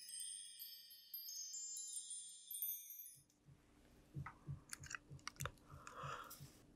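Faint shimmering high chime tones that fade out about three seconds in. Then a low steady hum with soft low pulses about three times a second, and metal dental instruments clicking and scraping against teeth.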